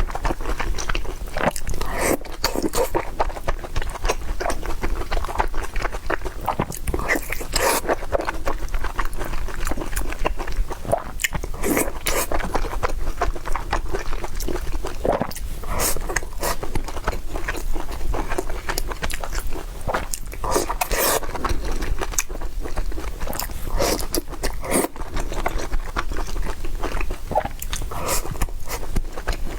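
Close-miked eating: biting and chewing meat-stuffed eggplant, with many irregular wet mouth smacks and clicks.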